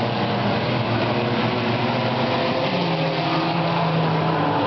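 Several four-cylinder mini stock race cars running laps on a dirt oval, their engines overlapping in a steady din. A closer car's engine note comes in past the middle as it passes near.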